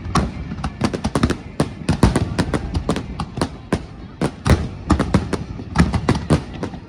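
Fireworks finale: shells bursting in rapid, irregular succession, several bangs a second and overlapping one another.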